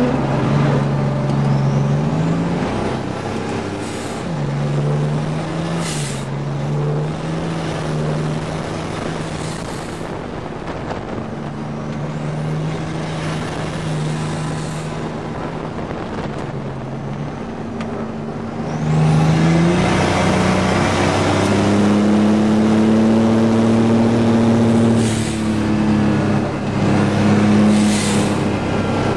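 GMC Syclone's turbocharged 4.3-litre V6 heard from inside the cab at racing pace. The engine note rises and falls through corners and gear changes, with a few brief hisses. About two-thirds of the way in it gets louder and pulls hard at full throttle, its note climbing slowly.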